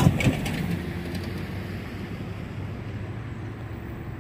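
Road vehicles crossing a railroad grade crossing: a few knocks at the start as tyres roll over the rails, then steady engine and road noise that dies down.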